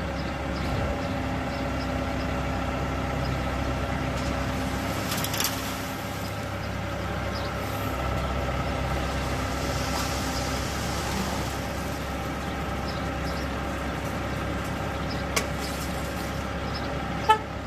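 Engine of a self-loading concrete mixer truck running steadily, with a few sharp knocks; the loudest knock comes near the end.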